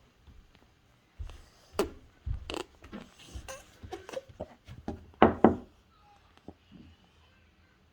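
Irregular short knocks and thumps with a few brief voice-like sounds, the loudest a pair about five seconds in.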